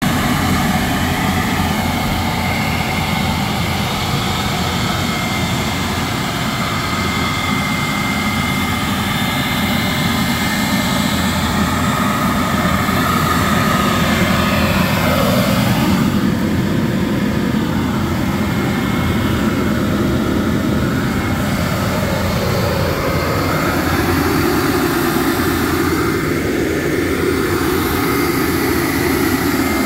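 John Deere tractor's engine running steadily while stationary, with a steady high whine over the engine noise.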